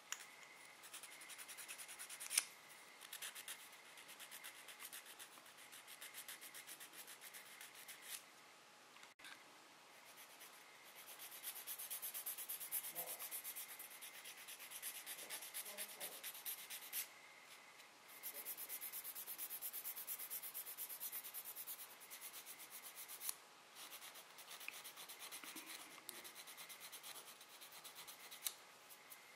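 Metal nail file rasping over a flour-built artificial nail extension in rapid back-and-forth strokes, shaping its surface, with a few brief pauses.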